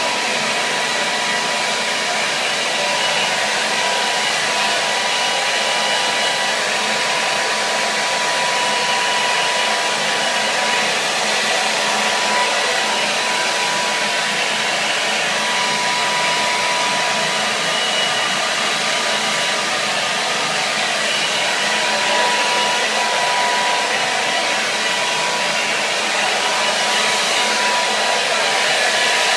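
Hair dryer running steadily: an even rush of blown air with a thin, steady whine over it, unchanging throughout.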